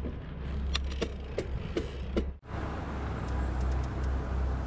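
Steady wind rumble on the microphone while riding a mountain bike, with five or six sharp ticks in the first half. About halfway through, the sound cuts out abruptly and the rumble resumes.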